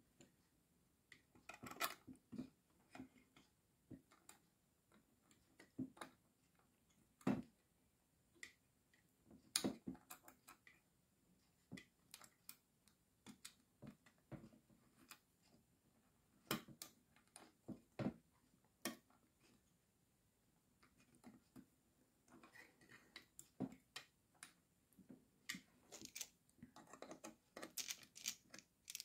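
Faint, scattered clicks and light scrapes of small plastic and metal parts of an electric kettle's base contact unit being handled and a small nut threaded on by hand. A denser run of scraping clicks comes near the end as a screwdriver tightens a screw.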